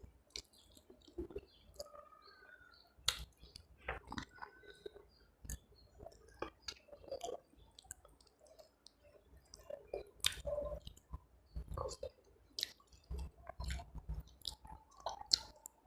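A person chewing a mouthful of rice and curry close to the microphone, with many short wet smacks and clicks of the mouth.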